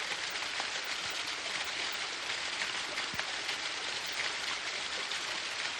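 Waterfall: a steady rush of falling, splashing water.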